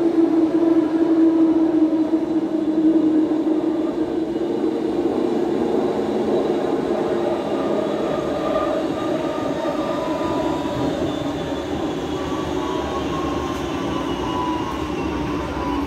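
Barcelona Metro Series 4000 train, unit 4069, running through a tunnel, heard from inside the car: a steady rumble of wheels on rail with motor whine. In the second half a higher whine slowly falls in pitch as the train slows.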